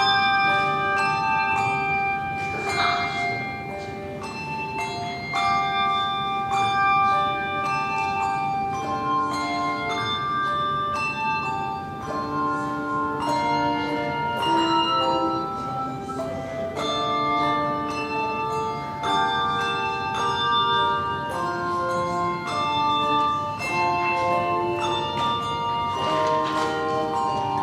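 A handbell choir playing a piece on brass handbells: struck notes ring out and overlap, often several sounding together as chords.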